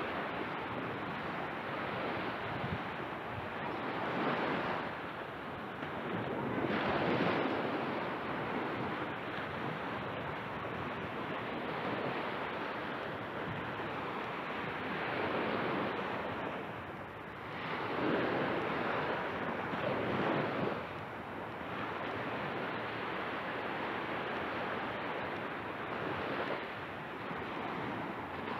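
Small ocean waves breaking and washing up a sandy beach, the sound swelling and easing every few seconds.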